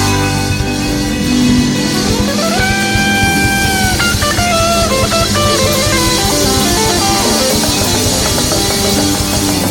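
Live rock music: an instrumental guitar passage over bass and drums, with a sustained bent guitar note about two and a half seconds in.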